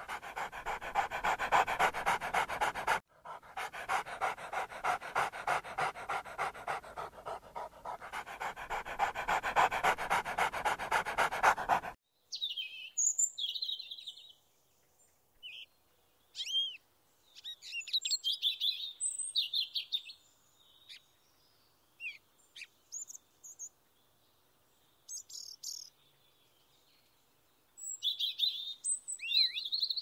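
A puppy panting fast and steadily, with a short break about three seconds in. About twelve seconds in the panting stops and short, scattered bird chirps and calls follow, from an eastern towhee.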